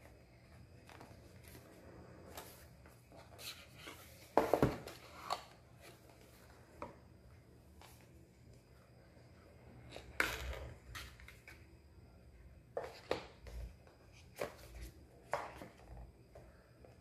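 Cardboard packaging being handled: a white paperboard box slid open and its inner tray and inserts lifted out, giving scattered scrapes, rustles and soft knocks. The loudest come about four and a half seconds in and again about ten seconds in, with a run of smaller ones near the end.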